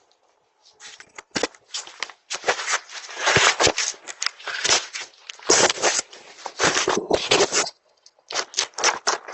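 Irregular scraping and crackling in quick, dense bursts, with a short break near the end. It sounds like a Ring video doorbell being handled and pulled at right against its own microphone.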